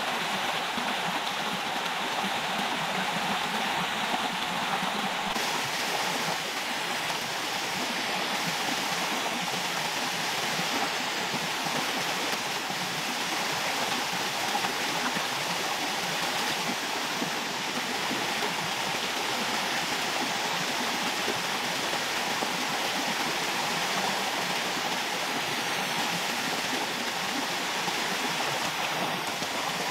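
Small forest stream cascading over rocks into a shallow pool: steady rushing, splashing water.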